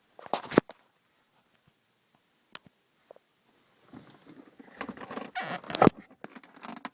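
Handling noises from the iPad, its holder and the dash bracket being worked by hand: a few sharp clicks near the start, a single click midway, then scraping and rustling with two loud clicks near the end.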